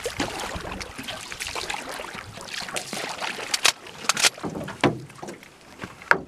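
A wooden paddle dipping and pulling through lake water beside a small aluminium boat, splashing with each stroke. There are a few sharp knocks in the second half.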